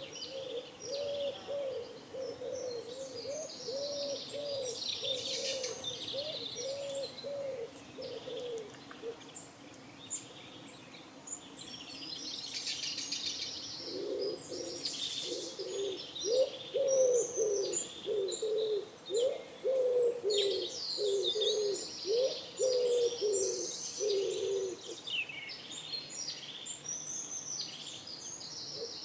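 Pigeons cooing in runs of short repeated coos, with a pause of a few seconds in the middle. Small songbirds chirp and twitter throughout.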